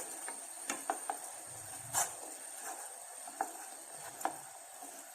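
A pan of thickening homemade herbal cough syrup on the stove gives a few scattered light clicks and taps over a faint steady hiss.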